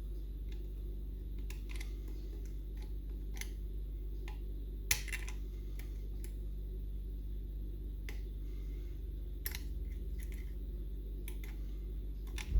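Scattered small metallic clicks and ticks of picking tools working inside a Union Strongbolt lever mortice lock, irregular, with one louder click about five seconds in, over a steady low hum.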